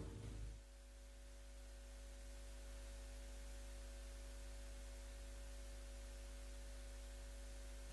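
The performance soundtrack dies away within the first second, leaving a faint steady electrical hum with a few fixed tones.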